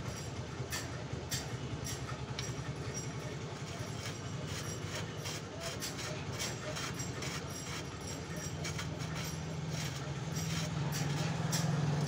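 Steady low mechanical rumble with a fast even pulse, growing louder in the last few seconds, with a few sharp metallic clicks from bicycle bottom-bracket parts being handled.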